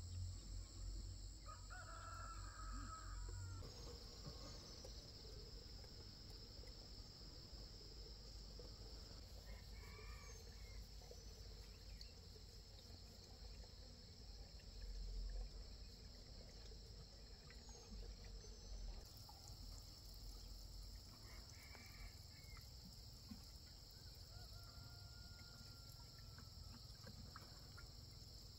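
Roosters crowing faintly a few times, with shorter calls between, over a steady high-pitched drone of insects.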